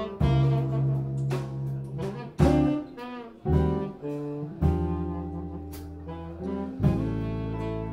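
Live jazz combo playing a slow blues ballad: saxophone, electric guitar and upright double bass over drums, with new chords and notes struck about once a second.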